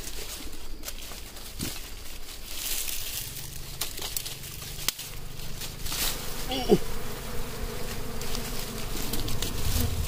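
Wild honeybees buzzing around their exposed comb, a steady hum, with crackling of dry twigs and leaves as the brush is handled. A short falling sound about two-thirds of the way in is the loudest moment.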